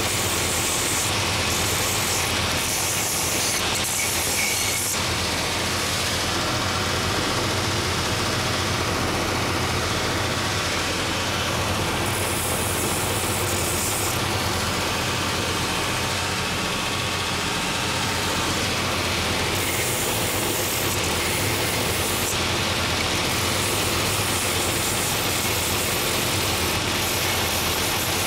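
Last-making belt sanding machine running steadily while a wooden shoe last is pressed against its coarse 24-grit, 3-inch-wide belt, the gritty hiss of wood being ground away swelling in several spells of a few seconds each as the waist of the last is shaped.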